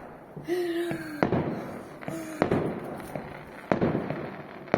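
Fireworks bursting: five sharp bangs spaced about half a second to a second apart, each trailing off in a rumbling echo.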